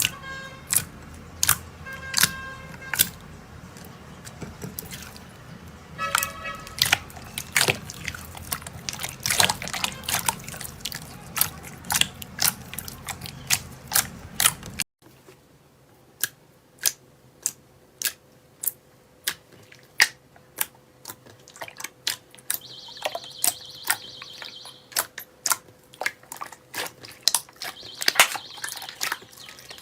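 Slime being squeezed and poked by hand, giving a string of sharp, wet pops and clicks. The sound cuts to a quieter clip of the same kind of popping about halfway through.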